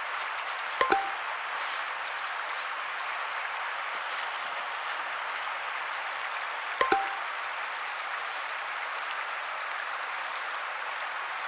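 Steady outdoor hiss at a riverbank, with two short double-blip sound effects, one about a second in and one about seven seconds in. Each blip steps down in pitch, like a chat-app message alert, matching the on-screen chat bubbles.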